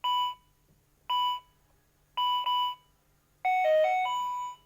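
Toy ATM savings bank's keypad beeping as a password is keyed in: four short beeps of the same pitch, the last two close together. A short electronic tune of several notes follows as the code is accepted.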